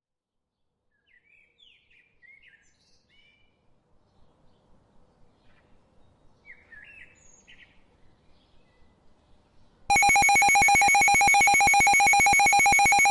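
Faint bird chirps in two short runs. About ten seconds in, a loud, harsh electronic emergency alert tone starts suddenly and holds: a fast, even pulsing buzz over several steady pitches.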